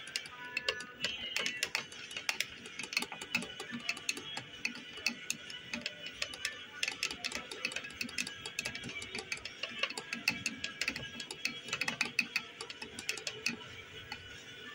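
Metal teaspoon stirring coffee in a ceramic mug, clinking against the sides in quick, irregular ticks.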